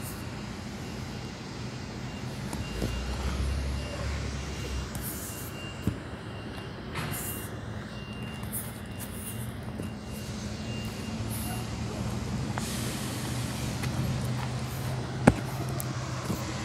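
Diesel railroad engine running steadily at a low idle. A faint, high-pitched tone comes and goes through the first twelve seconds, and there is one sharp click near the end.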